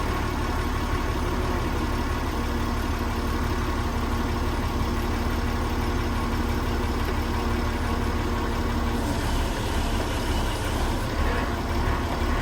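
Industrial machinery of a rice mill steam boiler plant running steadily: a deep, even rumble with a steady hum over it. Part of the hum cuts out about nine seconds in.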